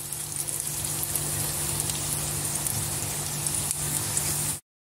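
Corn-flour-coated eggplant strips frying in a pan of hot oil, a steady crackling sizzle over a low steady hum. The sound cuts off suddenly near the end.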